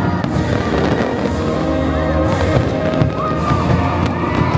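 Fireworks going off in repeated bangs and pops, mixed with the fireworks show's music playing loudly throughout.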